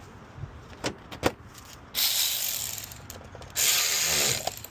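A few light clicks and knocks, then a ratchet wrench run in two quick bursts of rapid clicking about a second and a half apart, tightening the battery terminal clamp back onto the battery.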